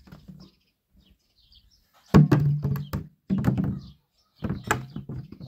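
Plastic jerrycan knocking and scraping on dirt ground as it is pushed and tips over, in three hollow-sounding bursts. The first, about two seconds in, is the loudest.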